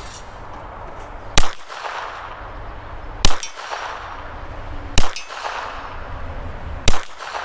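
A handgun fired four single shots about two seconds apart at steel targets, each shot followed by a metallic clang and a fading ring.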